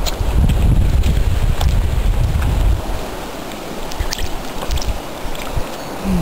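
Wind buffeting the microphone in a loud low rumble for the first three seconds or so, then easing. Small splashes and drips follow as a hand scoops tadpoles out of shallow water.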